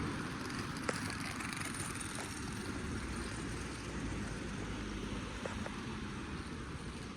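City street background noise, a steady hum of traffic, with a sharp click about a second in.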